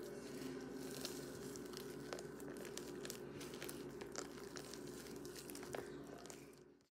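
Sticky slime, softened with aloe vera gel, being squeezed and kneaded by hand, giving scattered small clicks and crackles over a steady low hum. The sound fades out near the end.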